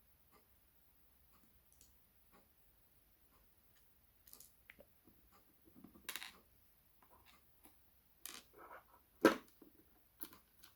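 Small metal clicks and taps of a lock cylinder being handled and taken apart, faint at first, then a few sharper clicks in the second half, the loudest about nine seconds in.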